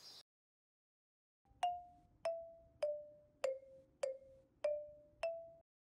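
A short jingle of seven struck, bell-like mallet-percussion notes, about two a second, each ringing and dying away. The pitch steps down over the first notes and back up over the last ones.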